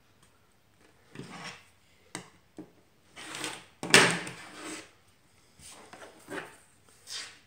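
A clear acrylic quilting ruler and fabric block being slid and repositioned by hand on a cutting mat: a series of short scraping and rustling sounds with a couple of small taps, the loudest starting sharply about four seconds in.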